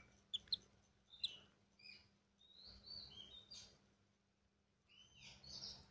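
Lovebird chicks giving short, faint begging chirps while being hand-fed, in several clusters, with a few sharp clicks in the first second and a half.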